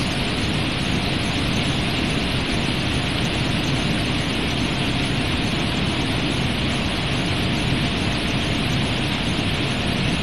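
Steady rushing drone of a cooling tower running, an even hiss over a low rumble that holds constant.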